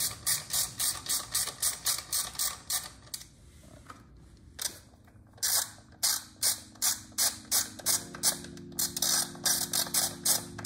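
Hand ratchet with a socket extension clicking rapidly, about four clicks a second, as it is swung back and forth to loosen a bash plate bolt. The clicking pauses for about a second and a half in the middle, then starts again.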